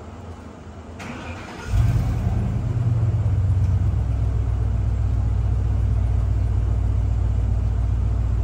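Ford F-350 pickup engine cranking briefly about a second in, catching with a short rev, then idling low and steady.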